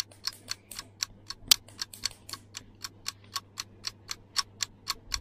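A clock ticking steadily, about four ticks a second, over a faint low hum.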